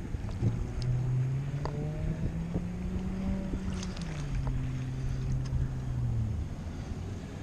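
An engine droning, its pitch climbing slowly and then dropping about four seconds in before it dies away near the end.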